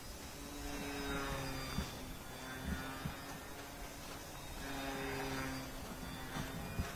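Wind buffeting the microphone, with a faint hum of tones at several pitches that come and go over it.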